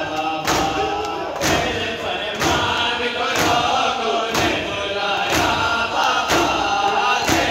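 A crowd of mourners doing matam: open hands striking chests together, about one loud slap a second, over a chanted lament sung by many voices.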